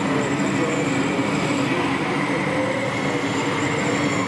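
1:16 scale RC Kirovets K-700 model tractor running steadily under load as it pulls a cultivator through sand, its electric drive and gearbox giving a constant high whine over a low hum.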